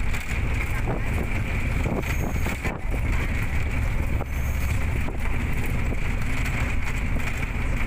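Steady low rumble of a moving vehicle heard from inside the cabin, with wind noise on the microphone and a few light knocks.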